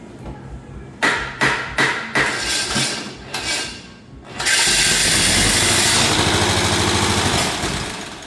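A quick series of sharp knocks, then the new riding-lawnmower engine runs loud and steady for about three seconds before dying down near the end.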